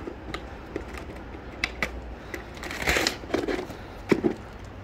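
Scattered light clicks and scuffs from a leashed dog and its walker moving over pavement, with a short rustle about three seconds in and a low steady outdoor rumble underneath.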